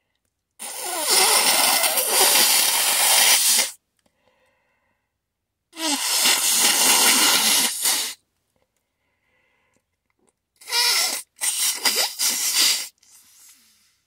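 A person blowing their nose into a tissue: two long blows of about three and two seconds, then two shorter blows in quick succession near the end.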